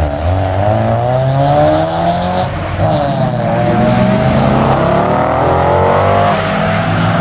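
Car engine under hard acceleration, pitch climbing through a gear, dropping at an upshift about three seconds in, then climbing again.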